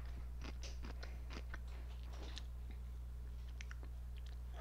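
Someone eating cucumber close to the microphone: irregular crisp crunches and clicks of chewing, over a steady low hum.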